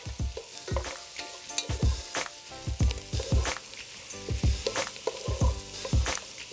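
Andouille sausage, onions and bell peppers sizzling in bacon fat in a stainless steel pot, stirred with a wooden spatula. Irregular scrapes and knocks of the spatula against the pot sound over a steady sizzle.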